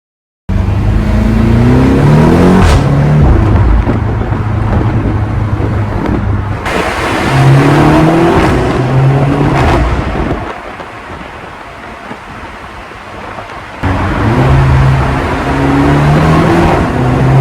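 BMW X6 M's twin-turbo V8 exhaust, revved in three bursts with a steady idle between them, with a few sharp pops.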